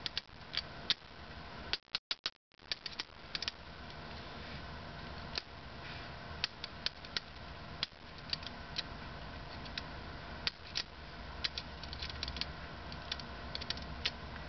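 Small plastic LED optics and their holder being handled and tapped, giving scattered light clicks and ticks as the optics settle into their casings, over a low steady hum.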